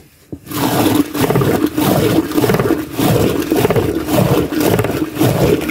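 A wooden churning stick twirled back and forth in a churn of frothy buttermilk: a loud, rhythmic swishing and sloshing that starts about half a second in and keeps an even, quick beat. Butter flecks are forming as the milk is churned.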